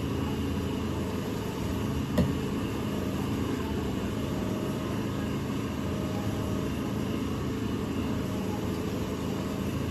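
Steady low machine hum, with one short click about two seconds in.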